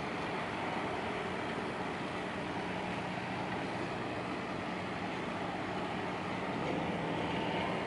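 A fishing vessel's marine diesel engine running steadily at low speed, a continuous drone with a low hum.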